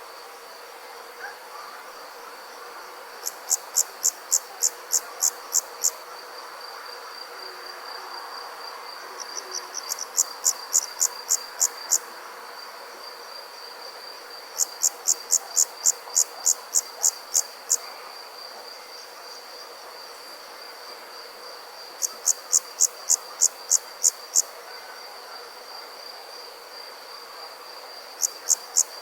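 Night insect chorus of crickets: a steady high-pitched trill throughout, overlaid by bouts of loud, sharp chirps at about four a second. Each bout lasts two to three seconds and comes back every five seconds or so.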